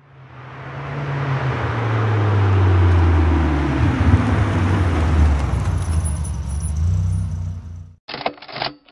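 A car driving by: the engine fades in, is loudest in the middle, and drops in pitch as it passes, then cuts off suddenly. A few short, sharp sounds follow near the end.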